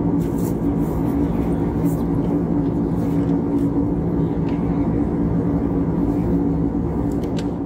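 Steady cabin noise of an Airbus A320-family jet airliner in flight: a constant engine drone with a low hum and rushing air, heard from a window seat over the wing.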